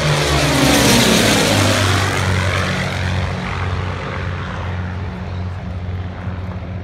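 Two propeller airplanes making a low pass in formation. The engine note rises to a peak about a second in, drops in pitch as they go by, then settles into a steady drone that slowly fades.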